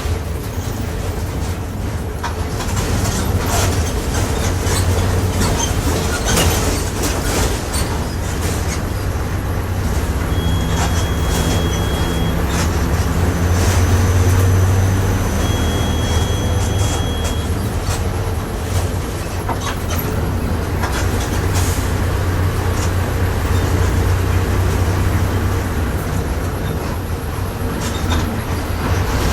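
Interior of a Volkswagen 17.230 OD city bus in motion, with its driveline running as a strong steady low hum that swells and eases. The differential is growling loudly, and the body and fittings rattle throughout.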